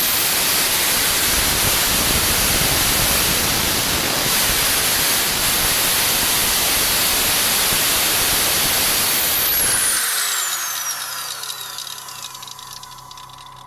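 Electric angle grinder running with no disc fitted, a steady noisy whir. About ten seconds in it winds down, its whine falling in pitch and fading away.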